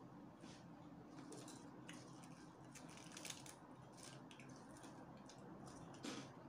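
Faint chewing and mouth smacks of a person eating noodles, a scatter of soft wet clicks over a low steady room hum.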